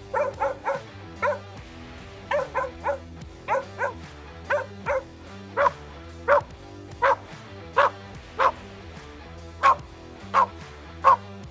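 A dog barking repeatedly, about twenty sharp barks, in quick clusters for the first few seconds and then spaced out at a steady pace, over background music.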